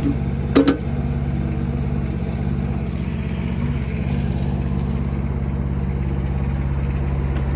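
Mini excavator's engine running steadily, with one sharp metallic clank about half a second in.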